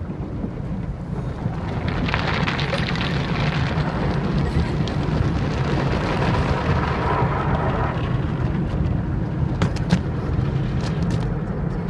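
Automatic car wash heard from inside the car's cabin: a steady low rumble of the machinery, with a dense rush of water spray and cloth brushes sweeping over the windshield and body. The rush rises about two seconds in and fades out by about eight seconds in. A few sharp knocks come near the end.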